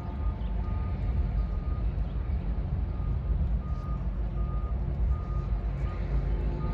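Electronic beeper sounding a short, steady tone about twice a second, like a reversing alarm, over the steady low rumble of a heavy engine.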